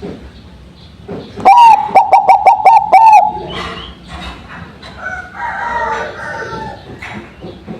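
Zebra dove (perkutut) cooing. About a second and a half in comes a loud call of one held note, then a quick run of short repeated notes, lasting under two seconds. Fainter bird chirping follows a couple of seconds later.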